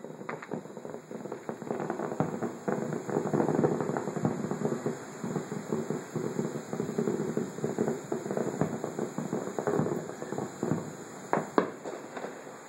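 Fireworks going off: a dense, continuous crackle of small pops, with a couple of sharper bangs near the end.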